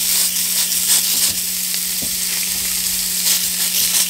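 Raw maple venison breakfast sausage patties frying in a hot cast-iron skillet: a steady high sizzle with many small crackles and pops.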